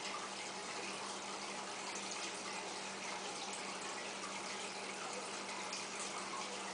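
Aquarium water running steadily: a continuous trickling and bubbling from the filter return and the air diffuser, with a steady low hum underneath.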